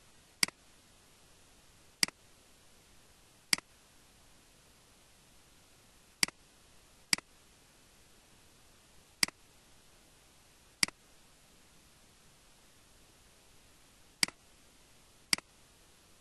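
Computer mouse button clicked nine times at irregular intervals, each a sharp click with a faint second click as the button is released.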